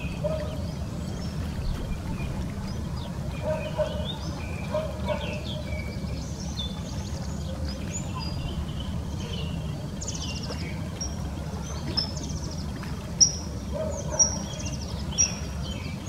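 Wild ducks calling: many short high chirps and a few dry rattling calls, the loudest three coming about a second apart near the end, over a steady low rumble.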